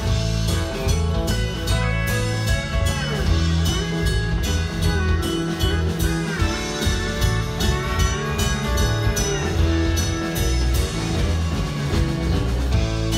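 Live band playing an instrumental break: electric guitar lead with bent, gliding notes over bass and a steady drum beat, with no singing.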